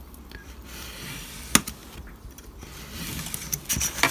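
Craft knife scoring a thin strip off a sheet of styrene plastic (Plasticard) along a steel rule: a light scratchy scraping, with one sharp click about a second and a half in and a few small clicks and knocks of handling near the end.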